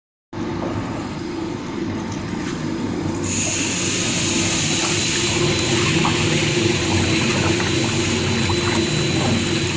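Stainless-steel paddle mixer running, its paddles churning minced meat in the trough: a steady machine drone, with a steady hiss joining about three seconds in.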